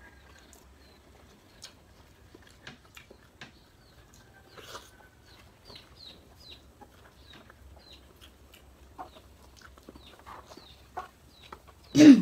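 Chickens clucking now and then over faint clicks and taps of people eating with their hands from plates. One short loud call comes just before the end.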